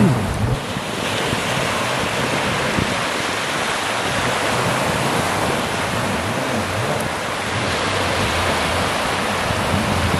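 Small waves breaking and washing up a sandy beach, a steady rush of surf, with wind buffeting the microphone.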